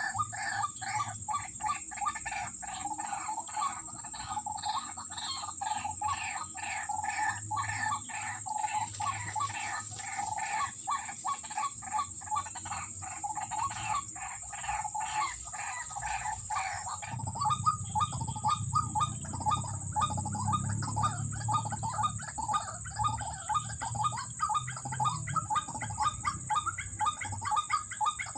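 White-breasted waterhens (ruak-ruak) calling: a fast, unbroken run of repeated croaking notes, several a second. About two-thirds of the way through, the calling turns denser and lower.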